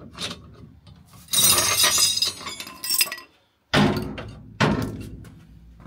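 Steel hand tools clattering and clinking against each other. Then come two heavy metal-on-metal strikes about a second apart, each ringing and dying away slowly.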